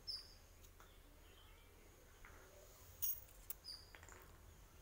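Small birds chirping faintly: a few short high chirps near the start, a quick cluster about three seconds in, and one more just after, over a quiet background.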